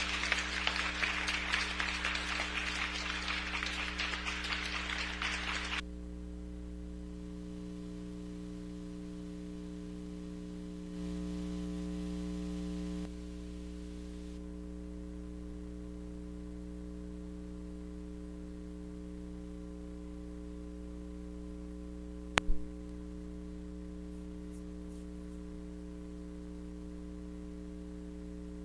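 Applause for about six seconds that cuts off suddenly, leaving a steady electrical mains hum. A single sharp click sounds a little after the middle.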